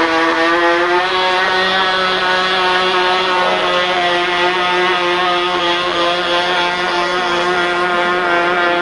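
OS .45 glow engine of a radio-controlled model seaplane running at high revs with a steady, high-pitched buzz. Its pitch rises a little in the first second, then holds even as the model runs across the water.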